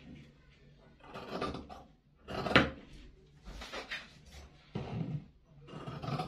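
Fabric being handled and cut with tailor's shears on a cutting table: a series of short rasping strokes about a second apart, the loudest about two and a half seconds in.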